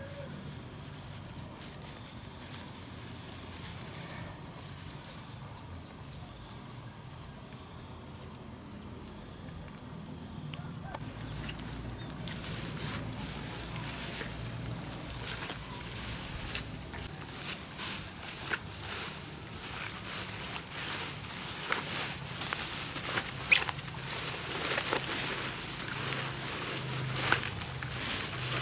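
Field insects give a steady high-pitched trill, with a second insect pulsing about once a second for the first ten seconds. From about halfway, leafy weeds rustle and crackle as they are handled and pulled, growing louder near the end.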